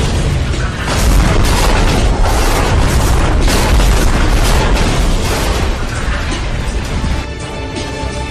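Repeated explosion booms with a heavy low rumble, laid over dramatic music. About seven seconds in, the booms stop and the music carries on alone, quieter.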